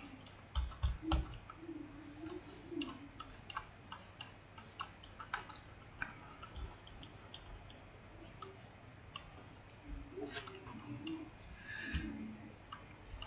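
Faint, irregular clicks and ticks of a computer mouse and its scroll wheel as a price chart is dragged and scrolled.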